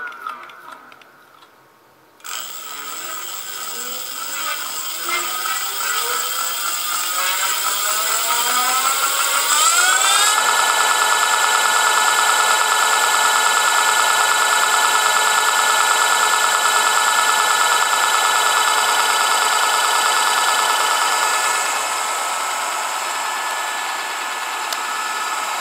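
Crystalyte hub motor spinning free on the bench with an electric whine. The whine falls away and nearly stops in the first two seconds, then climbs in pitch over about eight seconds as the motor spins up, and holds at a steady high pitch at full speed, a little softer near the end.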